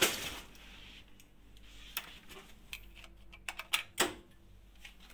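A room door's latch clicking shut at the start, then a few scattered light clicks and knocks, with a quick run of them near the end.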